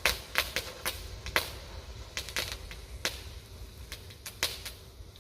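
Small consumer firework fountains going off with about a dozen sharp, irregular pops and cracks, the loudest in the first second and a half.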